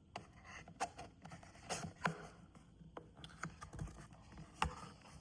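Packaging and a small device being handled by hand: scattered light clicks and taps with soft rustling between them.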